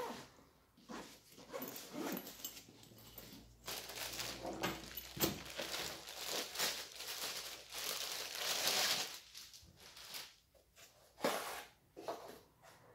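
Clear plastic bag rustling and crinkling while a corded random orbital sander is unwrapped from it, with a couple of sharp knocks as the tool is handled on a wooden table.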